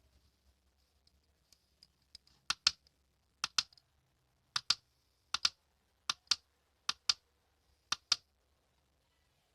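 Sharp clicks in pairs, seven pairs coming about once a second, with a few faint ticks just before them.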